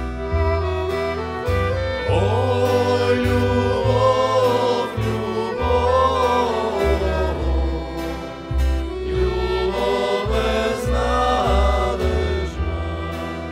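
Acoustic folk band playing a Macedonian Ohrid song: male voices singing together over acoustic guitar, violin, accordion and a double-bass line.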